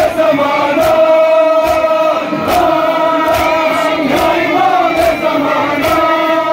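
Muharram mourners' chanted lament (noha): a lead male voice and many men chanting together, held and sliding notes, over a crowd, with a regular chest-beating (matam) slap a little more than once a second.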